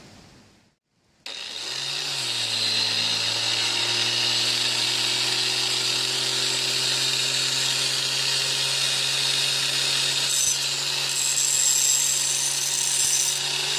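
Angle grinder held in a homemade wooden jig switched on about a second in, spinning up and settling to a steady running tone. Near the end a lawn mower blade's edge is pressed against the grinding wheel, adding a hissing grind as it is sharpened.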